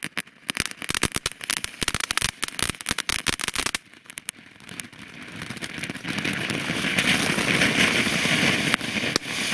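Nico 'Vier Elemente' ground fountain burning: dense rapid crackling pops for about the first four seconds, then a steady hissing spray of sparks that grows louder and holds. The crackling is called 'echt gutes Crackling'.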